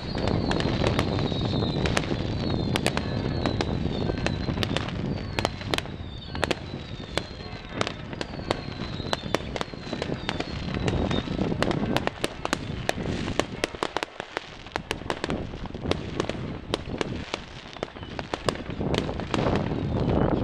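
Fireworks going off: a dense, continuous crackle of sharp bangs and pops from aerial bursts and firecrackers over a steady rumble. Through the first half, a quick run of short falling whistles repeats under the bangs.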